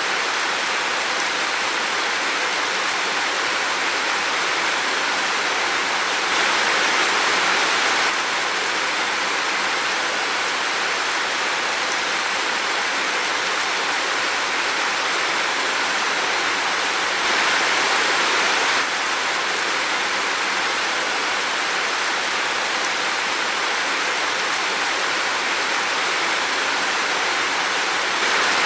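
Heavy rain falling in a steady, dense hiss, swelling slightly louder for a second or two about six seconds in and again around seventeen seconds.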